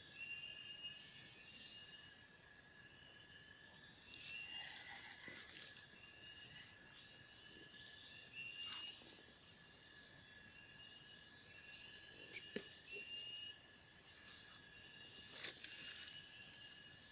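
Faint steady chorus of insects, several high even hums at once, with a short chirp repeating about once a second and a few faint clicks here and there.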